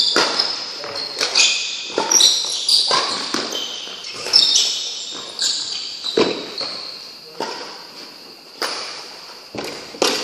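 Badminton rally: rackets striking the shuttlecock with sharp cracks roughly once a second, mixed with the high squeaks of court shoes on the floor. Each hit rings briefly in a large, echoing hall.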